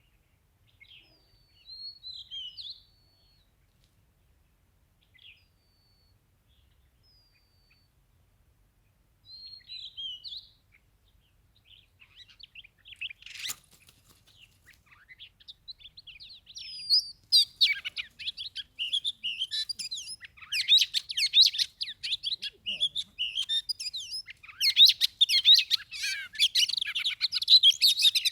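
Oriental magpie-robins calling: at first a few scattered whistled phrases, then, from about halfway in, dense rapid chattering calls that build and are loudest near the end. A single sharp click comes a little before the chattering starts.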